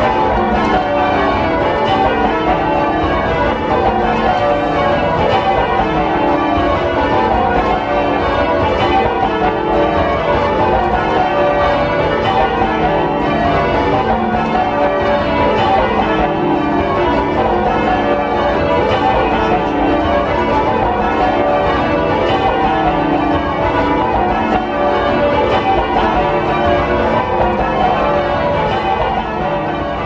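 The back eight of a ring of ten church bells being lowered in peal, heard from the ringing chamber directly below: a steady, dense stream of overlapping bell strokes in quick rounds.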